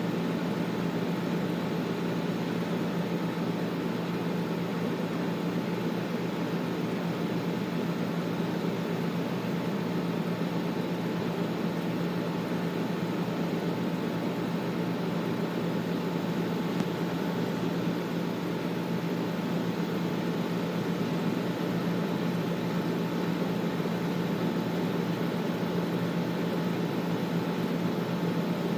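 Air conditioner running steadily: an even rushing noise over a constant low hum.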